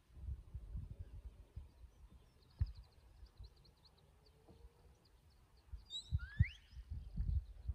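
Wind buffeting the microphone in gusts, with faint rapid high bird chirps. About six seconds in, a shepherd's whistle gives a short rising note: a command to the working sheepdog.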